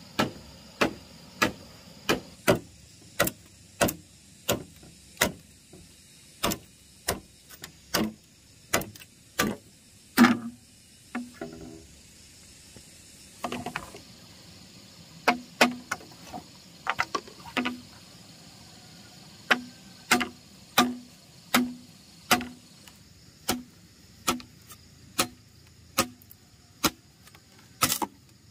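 Rhythmic blows of a hand tool on bamboo, about one and a half knocks a second, each with a short hollow ring, pausing briefly twice.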